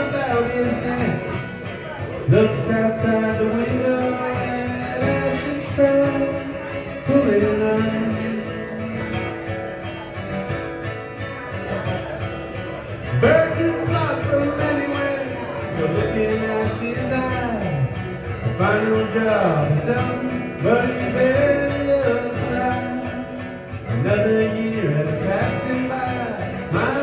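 Live performance of a country-style song: guitar playing, with a voice singing over it.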